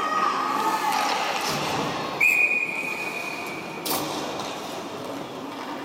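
A referee's whistle blown in one long, steady blast of about a second and a half, starting about two seconds in. A sharp knock follows just after it ends, over the hubbub of the rink.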